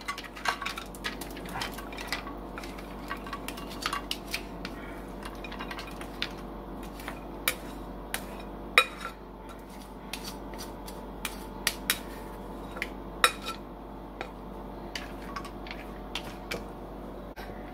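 Plastic spoon scraping and knocking against a glass mixing bowl and a glass baking dish as a pasta and chicken mixture is tipped out and spread, giving irregular clinks and taps, a few of them sharper.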